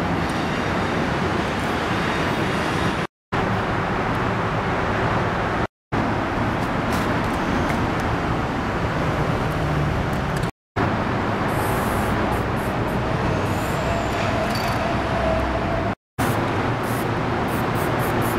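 Steady road traffic noise, dropping out for a split second four times.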